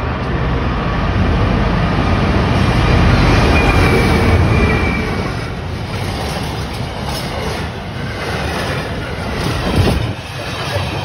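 Freight train of empty flat wagons passing at close range, a heavy rumble and clatter of wheels on the rails, loudest in the first half. A brief thin wheel squeal comes midway, and a sharp clunk near the end.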